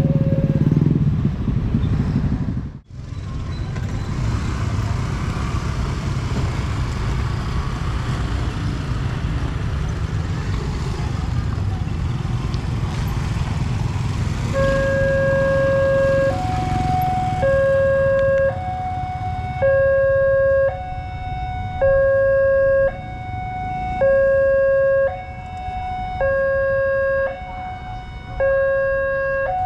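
Motorbike traffic rumbling over a railway level crossing, then about halfway through the crossing's warning alarm starts: two alternating tones, a lower one about a second long and a higher, shorter one, repeating. The alarm signals an approaching train as the boom gate comes down.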